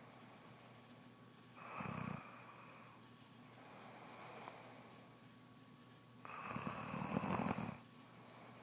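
A pregnant woman snoring in her sleep. There is a short snore about two seconds in, a soft breath between, and a longer snore about six seconds in.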